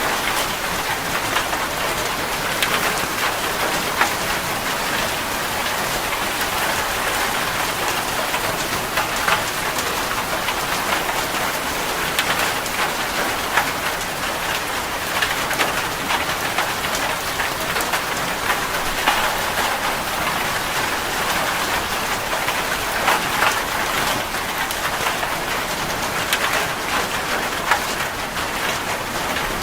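Steady rain falling, a continuous hiss of rain with many individual drops pattering on a surface.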